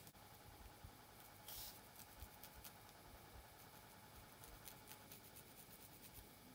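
Faint scratching and ticking of long fingernails picking and parting through hair at the scalp, with a short brushing hiss about a second and a half in.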